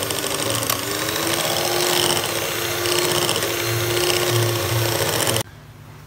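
Electric hand mixer running, its twin beaters whirring through thick chocolate batter in a glass bowl. The motor whine is steady apart from a brief dip about a second in, and it stops suddenly near the end as the mixer is switched off.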